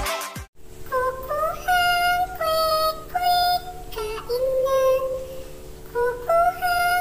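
Background music. A busy intro jingle cuts off about half a second in. After a brief gap, a high, singing-style melody of held, sliding notes plays over a steady low drone.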